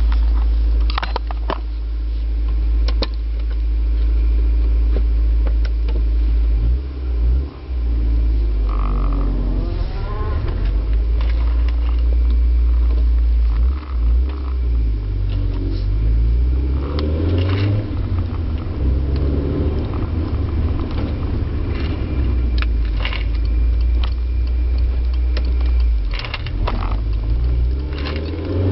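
2000 Acura Integra LS non-VTEC four-cylinder, with DC headers and downpipe, cold air intake and a Magnaflow muffler, running through its exhaust. It idles steadily, then is revved up and let fall back several times from about nine seconds in.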